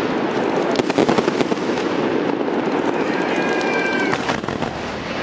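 Aerial fireworks crackling and popping in a dense, rapid stream of small bangs. About three seconds in, a high steady whistle-like tone sounds for about a second.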